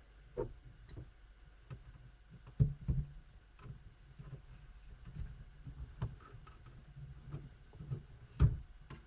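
Light clicks and taps of the plastic casing and parts of an Acer Aspire 4810T laptop being handled during disassembly, with two louder knocks, one about a third of the way in and one near the end.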